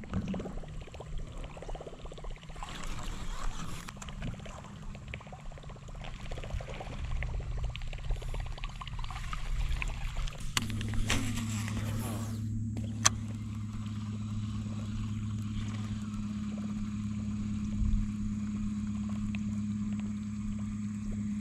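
Boat motor running with a steady low hum that changes to a stronger, even tone about halfway through. A single sharp click sounds a little later.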